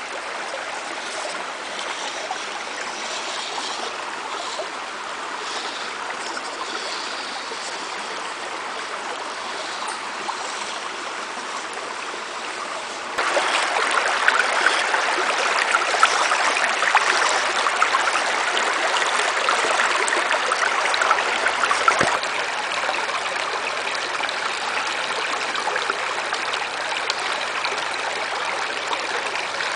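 Creek water rushing and trickling over rocks, a steady noisy wash. It gets suddenly louder about 13 seconds in and drops back about 22 seconds in.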